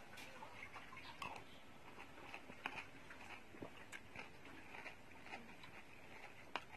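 Metal spoon and fork clicking and scraping faintly against a bowl of meatball soup as the meatballs are cut, with a few sharper clicks spaced a second or so apart.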